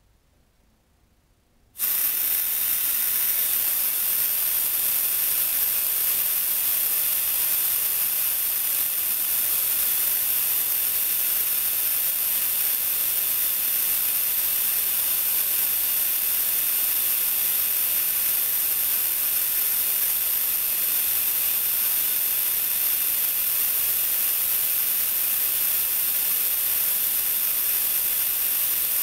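Compressed air hissing steadily out of an airbrush compressor's air tank through an opened valve, starting suddenly about two seconds in. The tank is being bled down so that the pressure switch will cut the refrigerator-compressor pump back in.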